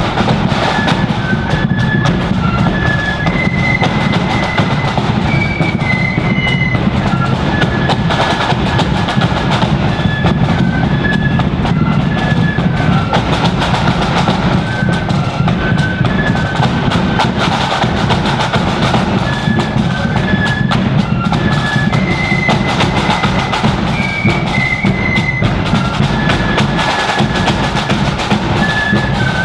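Marching flute band playing a tune: a line of flutes carrying the melody in short high notes over snare drums rattling out a constant rhythm and a bass drum beating time.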